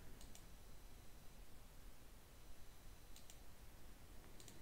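A few faint computer mouse clicks over quiet room tone: three short double clicks, about a quarter of a second in, a little after three seconds and near the end.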